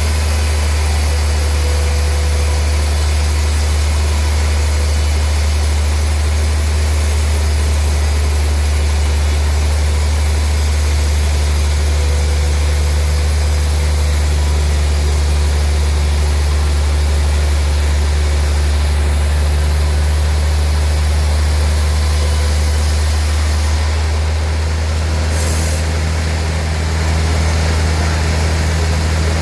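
Sawmill machinery running steadily with a loud, unbroken low drone, dipping slightly for a moment about four-fifths of the way through.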